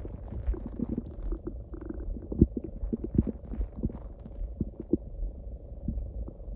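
Human stomach growling loudly: a continuous low rumble broken by many short gurgles and pops, several a second.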